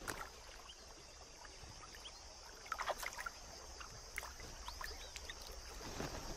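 Elephants' feet splashing and sloshing as they wade in the shallow water of a waterhole, faint, with a few short high chirps around the middle.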